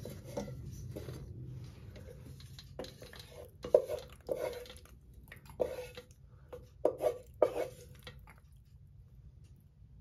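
Wooden spoon knocking and scraping against the inside of a metal pot with a speckled coating as cooked shell pasta is scooped out onto a ceramic plate: a run of about eight short clunks and scrapes between about three and eight seconds in.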